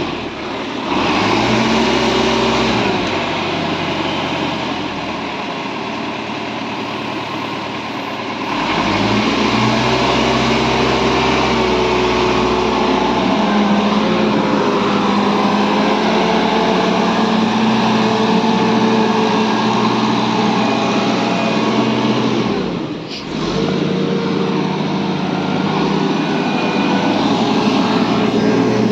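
Engine of an Ajax self-loading concrete mixer running steadily, its speed stepping up and down a few times, with a brief dip about three quarters of the way through. It is running properly after a wiring harness repair.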